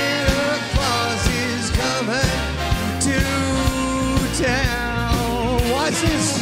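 Male singer with a big band: a sung melody with held, wavering notes over saxophones, brass and drums keeping a steady beat of about two strokes a second.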